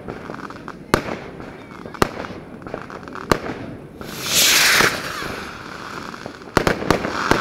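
Aerial fireworks going off: single sharp bangs about a second apart, a loud hissing, crackling rush about four seconds in, then two quick bangs followed by crackling near the end.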